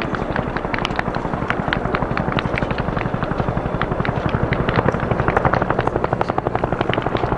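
Military helicopter's rotor blades beating in a fast, steady chop.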